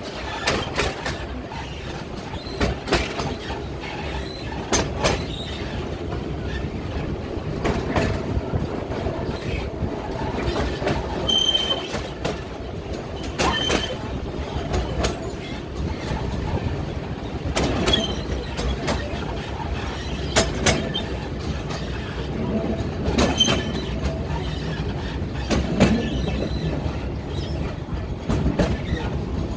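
Narrow-gauge train rolling along the track: a steady rumble with clacks every two or three seconds over the rail joints and a few brief high squeals from the wheels.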